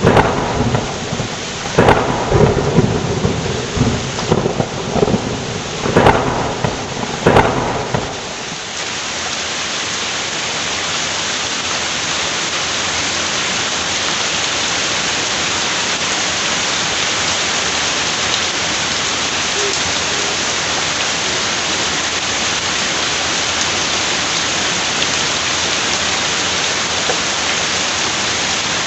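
Heavy rain with thunder: sharp cracks and low rumbling over the downpour, the thunder dying away about eight seconds in, leaving the steady hiss of heavy rain.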